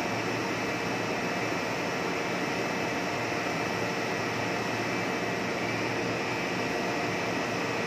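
Plastic blown-film extrusion machine running: a steady whirring machine noise with a few faint steady tones, unchanging throughout.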